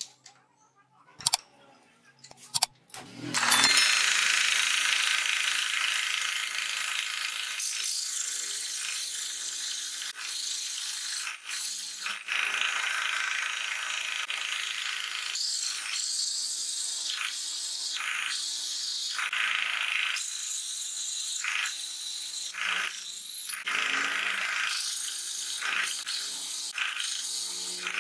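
A few light clicks as a hole saw is fitted into a drill press chuck, then the hole saw cutting discs out of plywood: a loud, harsh rasping that starts suddenly about three and a half seconds in. From about halfway it comes in short stretches with brief gaps between cuts.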